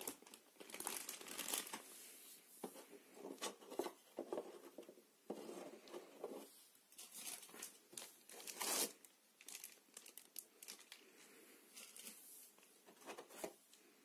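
Thin plastic packaging bags crinkling and rustling in irregular bursts as items wrapped in them are handled and lifted out of a box.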